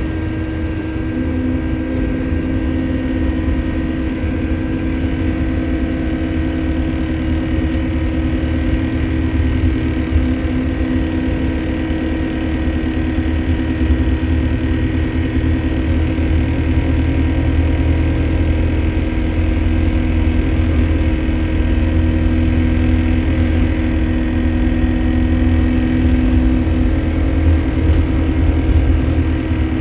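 A diesel bus engine heard from inside the bus as it drives: a steady low rumble with a constant droning hum on top, a little louder from about halfway through. The uploader takes this strange noise for a leaking turbo.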